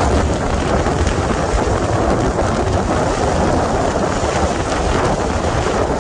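Heavy wind noise on a phone held out of the window of a car driving at highway speed, mixed with the steady hiss of tyres and spray on a rain-soaked road.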